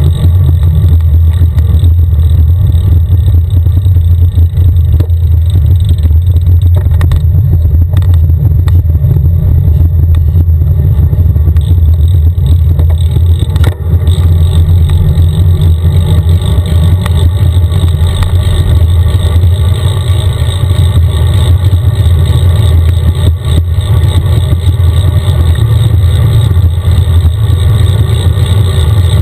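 Steady loud rumble of wind buffeting a cycling camera's microphone while riding along a highway, with a single brief knock about halfway through.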